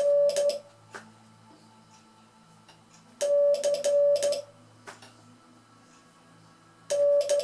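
Morse code sent by hand on a straight key: a steady mid-pitched sidetone beep keying the letter C (dah-di-dah-dit), with a sharp click from the key at each press and release. The letter repeats about every three and a half seconds: one group ends just after the start, a full one comes about three seconds in, and another begins near the end.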